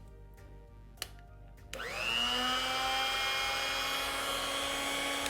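Ilco Mini Mite 008A key duplicating machine switched on: its motor and cutter wheel spin up with a quickly rising whine, then run at a steady high whine, beginning to wind down right at the end. A single click comes about a second in.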